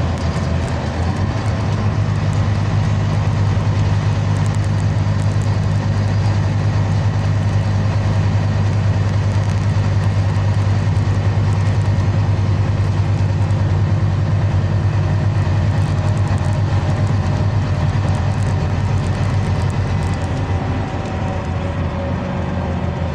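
Scania Citywide LE 12M city bus under way, heard from inside the passenger cabin: a steady low engine drone with road and tyre noise. The drone eases a little near the end.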